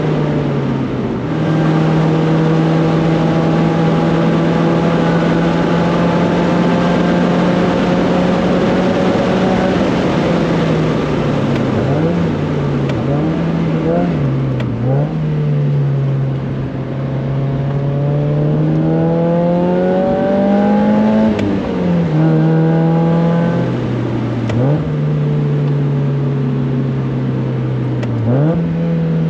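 1999 Mazda Miata's four-cylinder engine pulling hard around a race track lap. Its note holds mostly steady at high revs, dips sharply and recovers several times, and climbs for a few seconds about two-thirds of the way through before dropping back.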